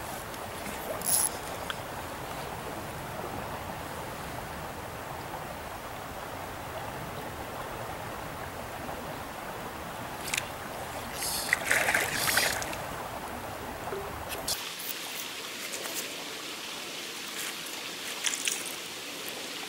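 Steady rush of flowing trout-stream water, with a few brief sharper sounds about two-thirds of the way through. Near the end the low part of the rush drops away abruptly.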